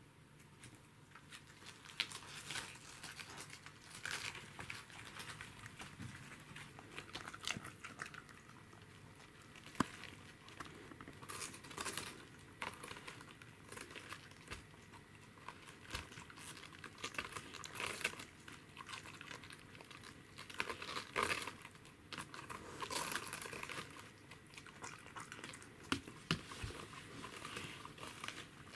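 Pembroke Welsh corgi biting and chewing raw cabbage leaves: irregular crisp crunches with crinkling of the leaves, starting about two seconds in.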